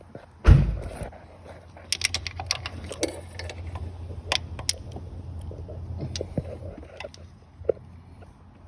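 Hand tools working on the thermostat housing of a Nissan Maxima's 3.5-litre V6: a heavy knock about half a second in, then scattered metallic clicks and taps. A steady low hum runs underneath.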